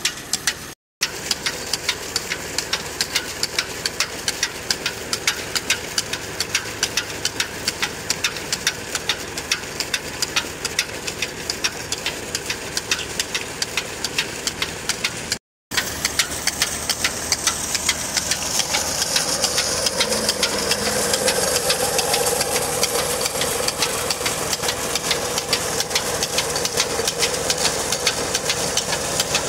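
Tractor diesel engine running steadily, driving a belt-driven centrifugal irrigation pump through its PTO shaft and a large pulley wheel, with a regular clicking about three to four times a second.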